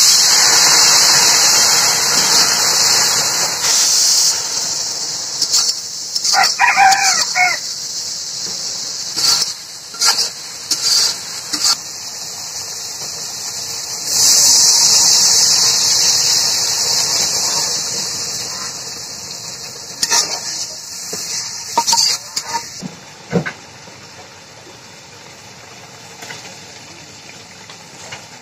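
Water poured into a hot kadai of frying onion masala, hissing and sizzling loudly as it hits the pan, once at the start and again about 14 seconds in. A rooster crows once about 7 seconds in, and the metal spatula knocks against the pan a few times.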